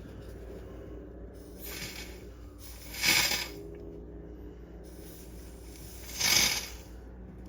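Two short blasts of compressed air, each about half a second long, about three seconds apart, blowing debris out of an AC refrigerant line port.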